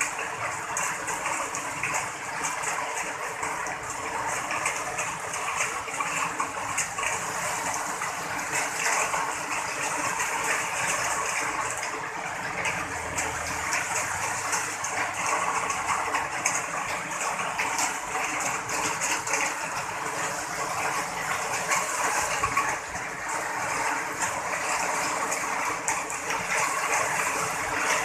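Heavy wind-driven rain pouring down, a dense steady hiss that swells slightly now and then.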